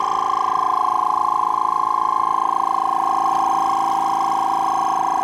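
Audew 12V DC twin-cylinder tire inflator running steadily under load, a loud, steady whine, as it nears full pressure on a large tire.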